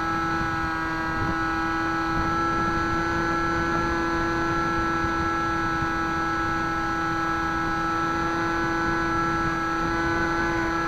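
Electric motor and pusher propeller of a Bixler RC foam plane running at steady cruise throttle in flight, a steady-pitched whine, with wind rumbling on the microphone.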